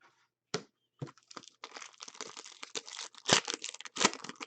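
Crinkling and rustling of trading cards and their packaging being handled, a dense run of small crackles from about a second in with a couple of sharper clicks in the second half.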